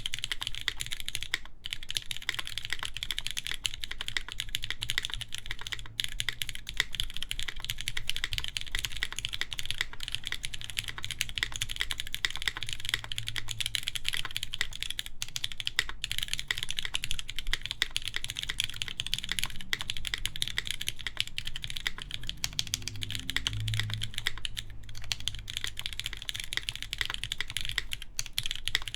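Continuous fast typing on a Keycult No. 2 mechanical keyboard with lubed Cherry MX Black linear switches on an aluminium plate under GMK keycaps, a dense run of key strokes with only a few brief pauses.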